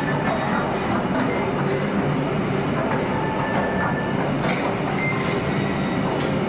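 Murmura (puffed rice) roasting machine running: its rotating drum rumbles steadily while rice grains rattle through the mesh sieve drum and spill into a basket.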